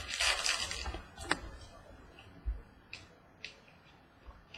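Trading cards being handled: a crinkly rustle at the start, then a sharp click about a second in and two fainter clicks around three seconds in.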